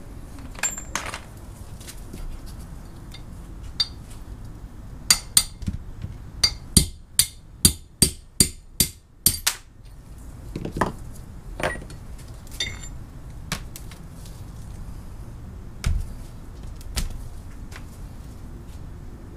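Hammer striking the metal parts of a machinist vise: a few scattered ringing knocks and clinks, then a run of about ten quick, evenly spaced blows, about two a second, starting around five seconds in, followed by more occasional taps and clinks.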